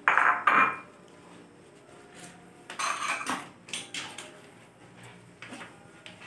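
Dishes being washed by hand: a soapy sponge scrubbing a stainless steel pot, with knocks and clatter of metal pots and dishes on a tiled counter. The loudest burst of scrubbing and clatter comes right at the start, another about three seconds in, then a few lighter knocks.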